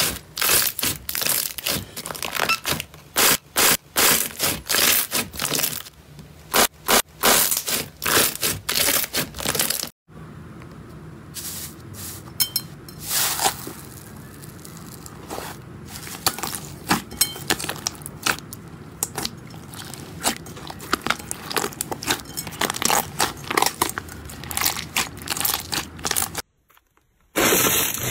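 Hands squeezing and poking slime: many sharp pops and crackles of air bubbles bursting in clear slime for about the first ten seconds, then softer squishing and rustling with scattered pops as a puffy slime is poked.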